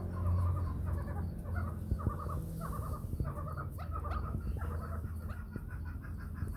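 Chukar partridge calling: a run of repeated clucking notes, two or three a second, that quicken in the second half.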